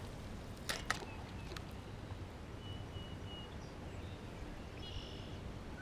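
Quiet outdoor background noise with a few faint, short, high-pitched bird calls, and a couple of sharp clicks about a second in.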